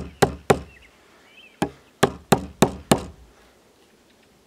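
Chisel being struck with sharp blows as it chops waste wood out of a dovetail housing in a timber beam: three quick knocks, a pause of about a second, then five more at about three a second, stopping a little after halfway.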